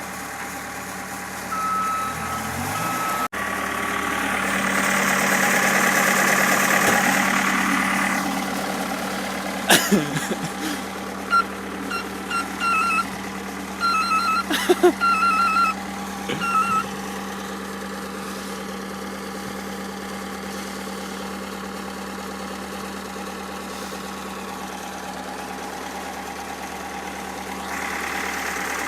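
Ford Bronco's engine running steadily at idle, swelling louder for a few seconds early on. A few sharp knocks and groups of short high beeps sound about halfway through.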